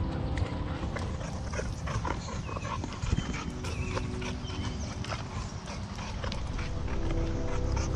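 Footsteps on sand and sticks as a hiker and his dogs move along, with a dog's short whines.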